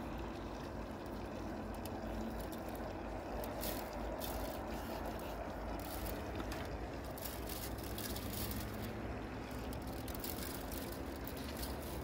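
A steady low background rumble with faint scattered clicks.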